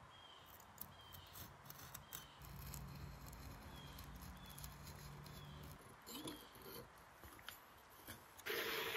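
Masking tape being trimmed with a snap-off utility knife against a steel axe head: faint scrapes and clicks, then a louder tearing rasp near the end.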